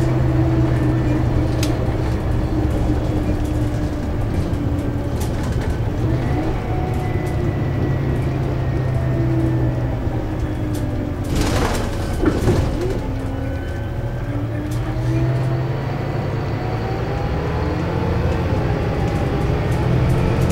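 Scania K320UB city bus with a ZF Ecomat automatic gearbox, heard from inside the cabin while driving. A steady engine drone runs under a gearbox whine that rises and falls in pitch with road speed. A short burst of hiss comes about eleven seconds in.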